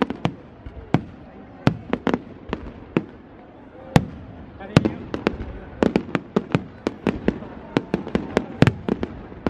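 Fireworks going off overhead in an irregular run of sharp bangs, at times several a second, with people's voices between them.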